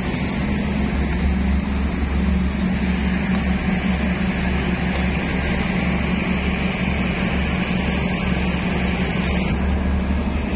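Steady low engine drone of a small boat under way, with an even hiss of water and wind over it that drops away near the end.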